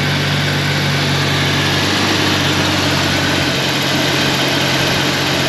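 1991 Jeep Comanche engine running steadily at idle after a crank-no-start fix, with a broken distributor rotor dealt with and the spark plugs regapped. Its note shifts about two seconds in and again a little later.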